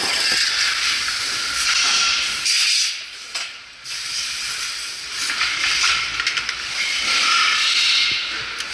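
Engine assembly line factory noise: a hissing wash of sound, mostly high-pitched, that drops away for about a second around three seconds in and swells again near the end.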